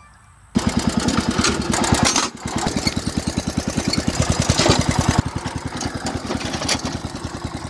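Wheel Horse riding mower's small engine running steadily at idle, a fast even putter that comes in abruptly about half a second in, with a couple of brief knocks over it.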